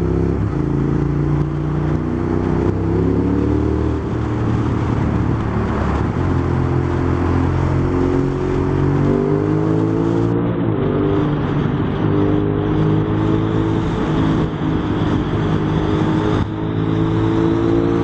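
Suzuki SV650's V-twin engine running as the motorcycle is ridden, its pitch climbing under acceleration a few times and stepping down between climbs as it shifts gear, then holding a steadier cruise.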